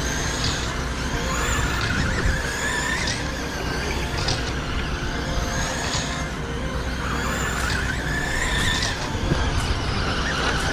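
Several electric RC short-course trucks (Traxxas Slash Mudbosses) racing on a dirt oval. Their motors and gears whine repeatedly, rising and falling in pitch as the trucks accelerate and slow through the corners.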